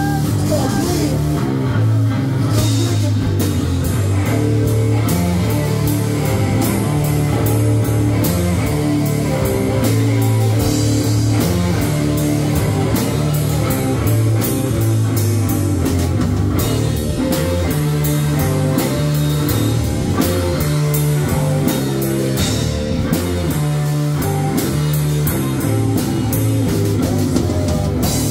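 A live rock band playing loud: electric guitar through a Marshall amp over a drum kit keeping a steady beat.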